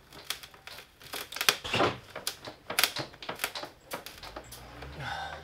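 A glued, doweled wooden cabinet panel being wrenched and pried by hand: a string of irregular knocks, creaks and cracks. It does not come free, as it is still held by screws at the top.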